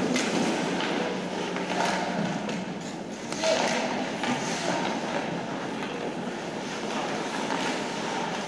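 Ice hockey skates scraping and carving on rink ice, with a few sharp clacks of sticks and puck.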